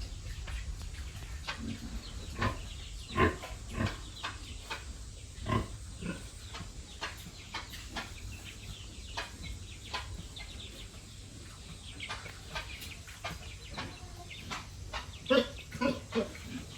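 Pigs on a farm with chickens among them: short, scattered animal calls, a few of them louder, bunched together near the end.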